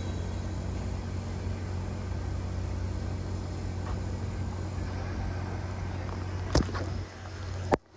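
Steady low drone of a car running, with two sharp clicks near the end.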